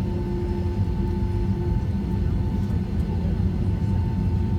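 Cabin noise aboard a Boeing 757-200: a steady low rumble of the jet engines and airframe, with a thin steady whine.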